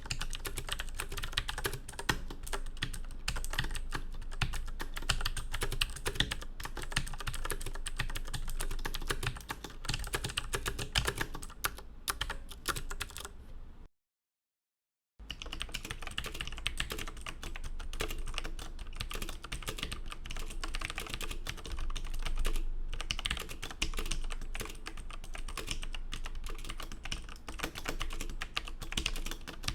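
Fast typing on mechanical gaming keyboards: a dense run of key clicks and clacks, in two takes split by about a second of dead silence around the middle. It is a sound test of Cherry MX switches (Tt eSports MEKA PRO) against Kailh switches, to hear how the two differ.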